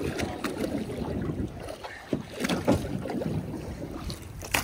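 Wind buffeting the microphone and water washing against the side of a boat, with a few short knocks.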